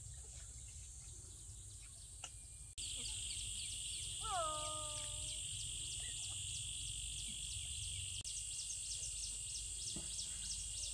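Rural outdoor ambience: a steady high-pitched insect drone with fast rhythmic chirping, and birds calling, over a low rumble. It gets suddenly louder a little under three seconds in, and one drawn-out falling call sounds soon after.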